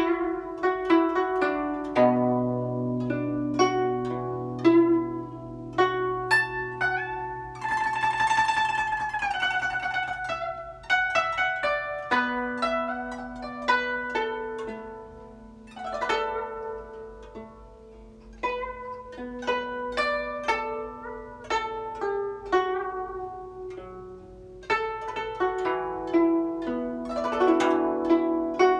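Chinese zither played solo: a passage of plucked notes over a held low note, with a note bent in pitch about eight seconds in.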